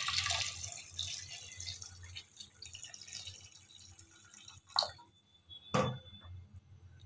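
Water being poured into an aluminium pot of sweet potatoes. It splashes strongly at first, then thins to a fainter trickle as the stream stops. Two short, sharp knocks follow near the end.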